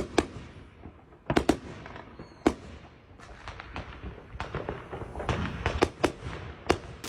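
A series of sharp cracks or bangs at irregular intervals, some coming in quick pairs, over a rumbling background, like firecrackers going off.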